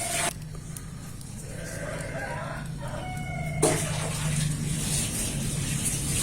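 Domestic fowl calling, a pitched call lasting about two seconds in the middle, over a steady low hum.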